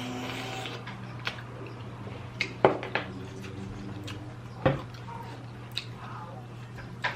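Mussel shells and utensils clicking and knocking against a dish while eating, about seven separate clicks, the loudest a little under three seconds in, over a steady low hum.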